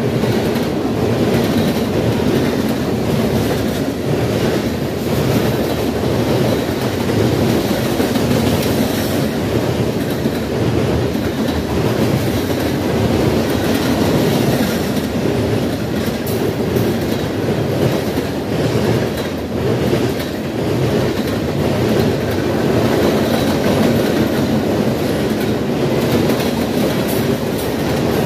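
Freight train of covered hoppers, boxcars and tank cars rolling past: a steady, loud rolling noise of steel wheels on the rails, with no let-up.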